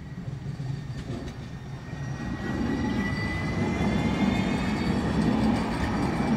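Siemens Avanto U25500 tram-train passing close by. Its wheel-on-rail rumble grows louder from about two seconds in, under a high electric whine that rises slowly in pitch.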